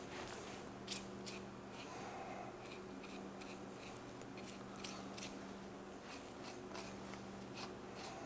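Butcher's knife cutting the skin away from a pork topside muscle on a cutting board: faint, scattered cutting ticks over a steady low hum.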